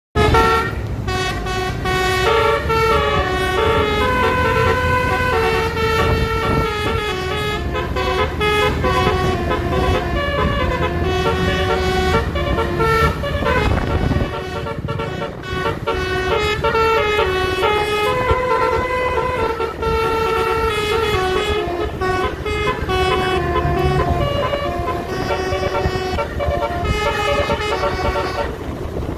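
Basuri telolet horn, a multi-trumpet vehicle horn, playing a tune of held notes that step up and down in pitch, with a low rumble underneath.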